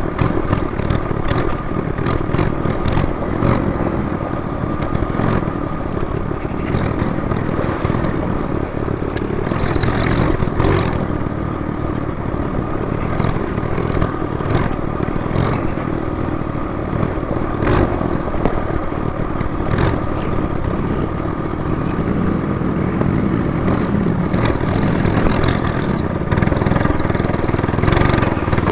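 A Trailmaster MB200 minibike's small single-cylinder engine running steadily as it is ridden, with frequent rattles and clatter from the bike on rough trail.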